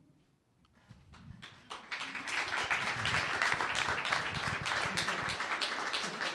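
Audience applauding, starting about a second in and swelling into steady clapping.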